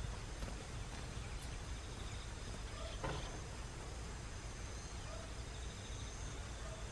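Field ambience: a steady low background rumble with faint, evenly pulsing high-pitched insect chirping, and a single soft thump about three seconds in.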